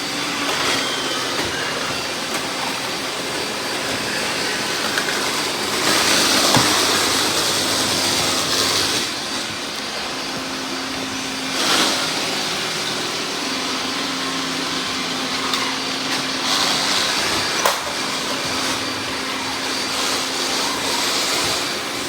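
Robot vacuum cleaners running: a steady whir of suction motors and brushes. It swells louder for a few seconds about a third of the way in and again later, with a sharp knock about three-quarters of the way through.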